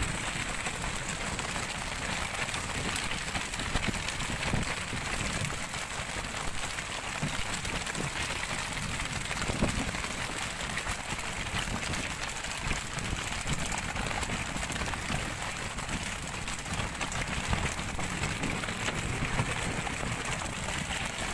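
Steady hissing wash of wind and splashing sea water around a tuna fishing boat, with a few small knocks.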